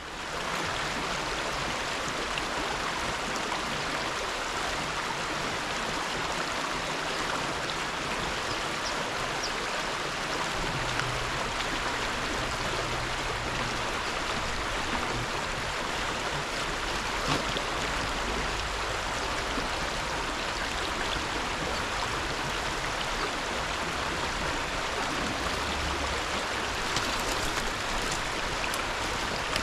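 Creek water flowing, a steady even rush with no change in level.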